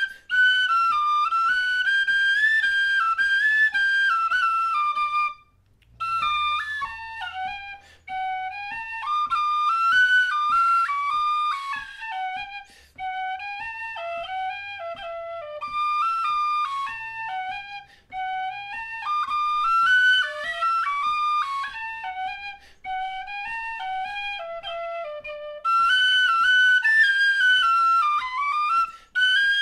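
Tin whistle playing an Irish traditional tune: a running melody with short breaks for breath. It drops into the lower octave about six seconds in and climbs back to the upper octave near the end.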